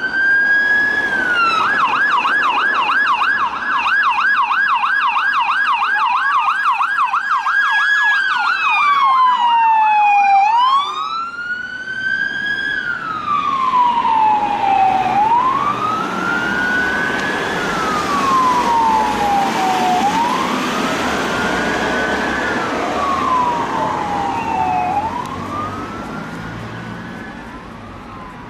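Police car siren on an emergency response, going from a slow rising-and-falling wail into a fast yelp of about four cycles a second, then back to the slow wail. The siren fades near the end as the car drives away.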